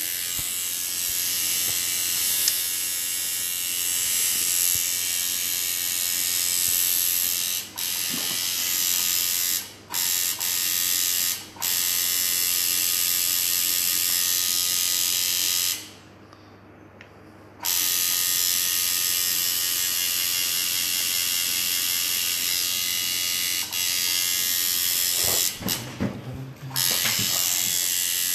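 Electric tattoo machine buzzing steadily as the needle works ink into skin. It stops briefly several times, the longest pause lasting about a second and a half just past the middle.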